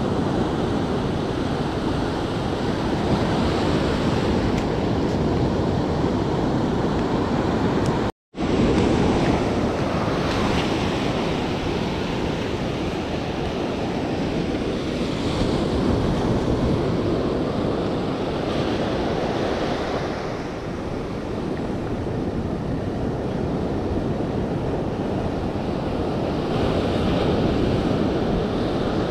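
Ocean surf breaking and washing up over the sand at the water's edge, a steady rushing wash. The sound cuts out for a moment about eight seconds in.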